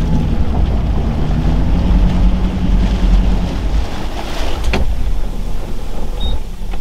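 Small boat's motor running slowly, with wind rumbling on the microphone and water around the hull; a brief sharp click about five seconds in.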